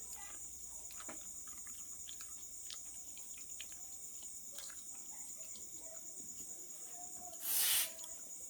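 Dogs chewing dry kibble: many small scattered crunching clicks. A steady high insect-like trill runs underneath, and one short loud hissing burst comes near the end.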